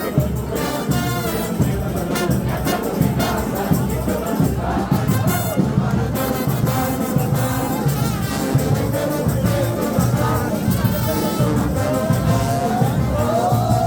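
Frevo orchestra playing a fast frevo march, with brass (trumpets and trombones) over a steady percussion beat and crowd noise around it.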